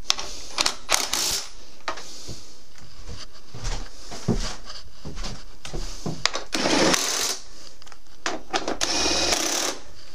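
Hand tools working bolts on a motorcycle subframe: scattered metal clicks and knocks, then two spells of rapid ratchet-wrench clicking, one about two-thirds of the way in and one near the end, as bolts are tightened.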